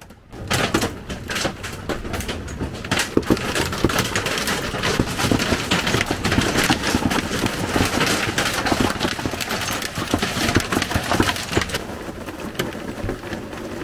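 Heavy rain beating on a sailboat, a dense hiss of countless drop impacts that begins abruptly.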